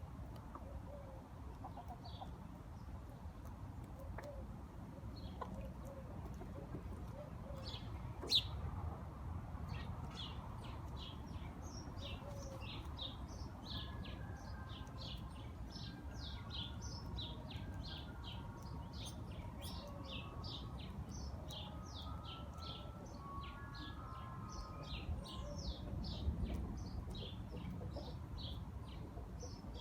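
Birds chirping: short high chirps, a few at first, then rapid and continuous from about eight seconds in, over a steady low background rumble.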